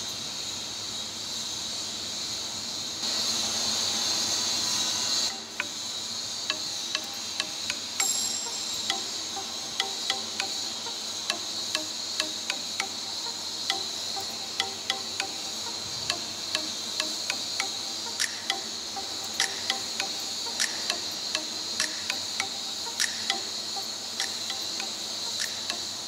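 TIG welding on a stainless steel pipe: a steady high hiss from the arc and argon, louder for a couple of seconds a few seconds in. It then gives way to sharp ticks about twice a second as the arc is struck and broken over and over in a pulsed stitch technique.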